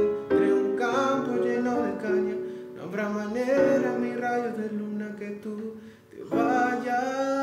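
Electronic keyboard playing sustained chords, with fresh chords struck about a third of a second in, just before the three-second mark and again a little past six seconds, under a man singing.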